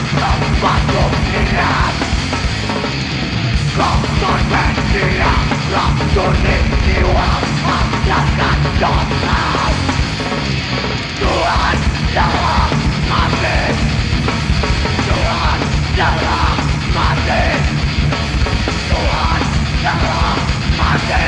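A heavy metal band playing live at full volume, with shouted vocals over the music.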